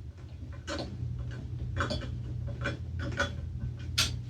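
Screws being driven by hand into a small engine with a screwdriver: a series of light, irregular clicks and ticks of metal on metal, over a steady low hum.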